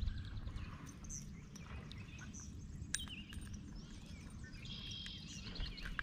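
Several birds chirping and calling, with a rapid trill about five seconds in, over a low background rumble.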